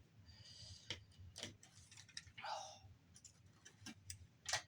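Faint, scattered clicks and brief scrapes of a Samsung Blu-ray player's parts being worked loose by hand during a teardown, with one sharper click near the end.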